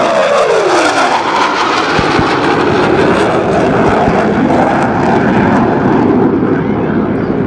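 F/A-18 Hornet's twin turbofans in afterburner on a low pass, the roar falling sharply in pitch as the jet goes by, then a steady rumble. A few dull low thumps sound in the rumble.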